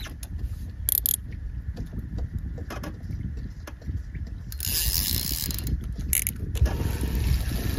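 A fishing reel's mechanism grinding and clicking as a hooked fish is played on a feeder rod, over a steady low rumble, with a short hissing burst about five seconds in.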